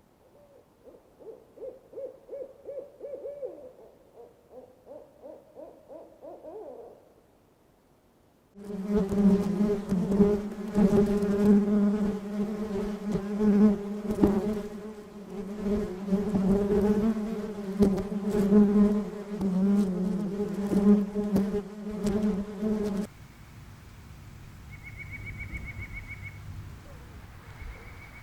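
An owl hooting in quick, pulsing series, then a short silence. Next comes a loud, steady buzzing of bees swarming over a honeycomb for about fourteen seconds, which cuts off suddenly. A quieter jungle ambience follows, with a bird's short high whistled notes near the end.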